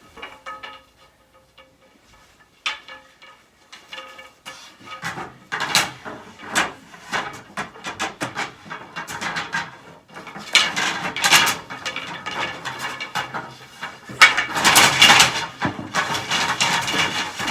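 IKEA bed's wooden slats clattering and knocking against each other and the frame as they are laid down. The clicks and rattles are sparse at first and grow busier and louder from about halfway through.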